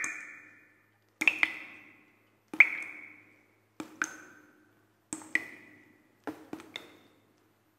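A sparse run of short, ringing plinks, one or two at a time about every second and a quarter, each at its own high pitch and fading quickly.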